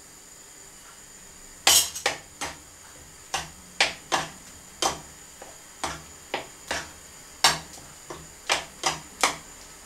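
A spoon knocking and scraping against a frying pan while flour is stirred into the tomato dressing. It is a string of short, sharp knocks at an irregular pace, about two a second, starting after a short quiet stretch.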